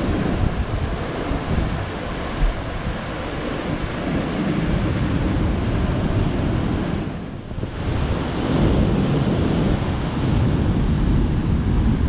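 Ocean surf breaking and washing around rocks, with wind buffeting the microphone. The wash eases briefly a little past halfway, then builds again.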